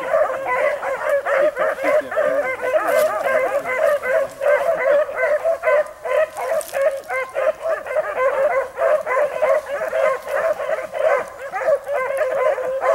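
A pack of rabbit-hunting dogs baying and yelping together in a continuous, overlapping chorus as they run a rabbit's trail.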